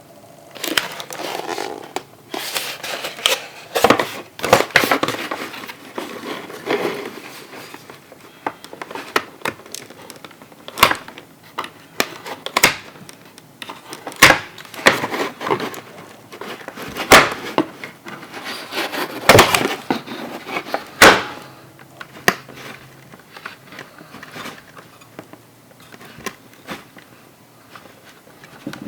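A boxed plastic toy figure and its packaging being handled: irregular rustling with many sharp plastic clicks and taps, the loudest clicks about two-thirds of the way through.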